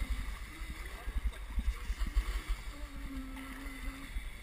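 Dragon boat under way, paddles splashing and water rushing along the hull, with irregular low rumbling buffeting on the microphone.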